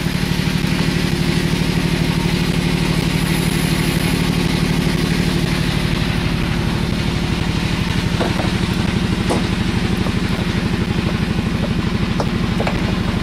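An engine on board the fishing boat, running steadily with a fast, even throb. A few light clicks come in the second half.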